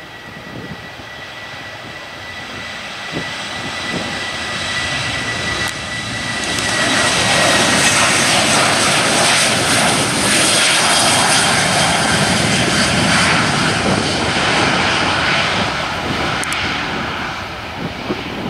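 Jet engines of a Boeing 737-800 at high power as it speeds along the runway past, a rushing roar with a high whistle that drops slightly in pitch as it goes by, swelling to a peak mid-way and easing off near the end.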